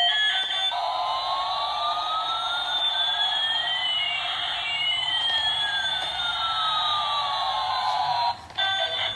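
Toy airplane's electronic sound chip playing a long synthetic effect: a steady tone under two beeping pitches, one gliding up and one gliding down, that cross halfway. It cuts off near the end, and the toy's tinny melody comes back in.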